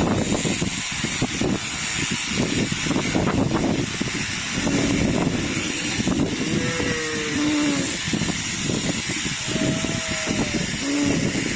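Strong wind buffeting the microphone with a heavy rumble and hiss. A few short pitched calls come through about halfway in and again near the end.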